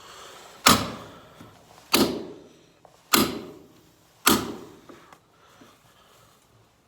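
Four hammer blows on a cold chisel, about one every 1.2 seconds, each a sharp strike that rings briefly, driving the chisel into net wrap wound round the skid steer's wheel hub.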